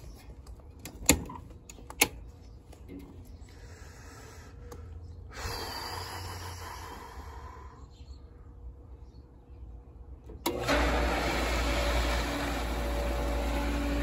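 Two sharp clicks of circuit breakers being switched on, then about ten seconds in a pool filter pump motor starts suddenly and runs with a steady hum.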